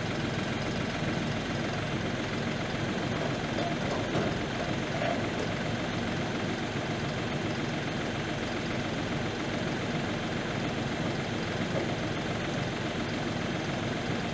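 New Holland compact tractor's diesel engine idling steadily while its front loader holds the truck bed.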